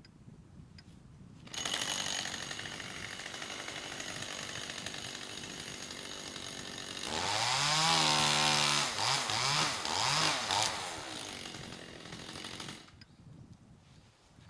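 Two-stroke chainsaw running: it cuts in suddenly and runs steadily, then is revved up to a high, held whine for about two seconds, blipped twice more, and winds down and stops near the end.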